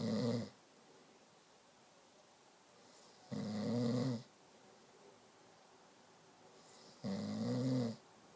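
Snoring: three low buzzing snores about every three and a half to four seconds, each lasting about a second. The first ends half a second in, the second comes about three and a half seconds in, and the third comes near the end.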